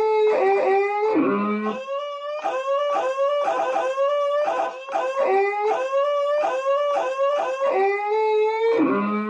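A man's laugh, sampled and chopped into a fast repeating loop of short pitched 'ha' notes, about four a second, each rising slightly. A lower held note comes in about a second in and again near the end, where the loop starts over.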